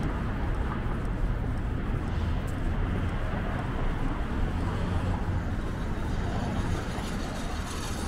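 Steady city street traffic noise, a low rumble of cars and engines with no single event standing out.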